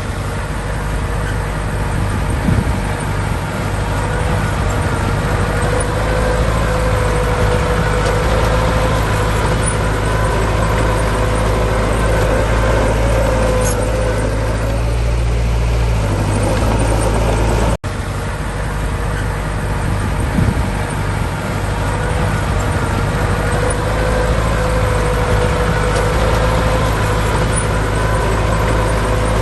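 Heavy diesel earth-moving machinery running steadily under load, with a faint whine held above the engine's low rumble. A brief break in the sound about two-thirds of the way through, after which it carries on the same.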